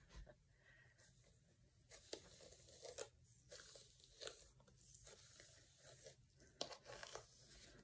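Faint crackling and scratching of a hairbrush and fingers working through wet, gel-coated curly hair, in a few irregular strokes.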